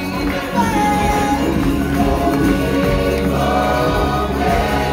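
Live stage-show music: a choir of singers performing with instrumental accompaniment and percussion.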